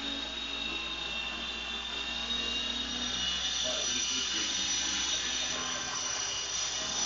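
Radio-controlled model helicopter running, its motor and rotor giving a high steady whine, with a higher tone joining about three seconds in.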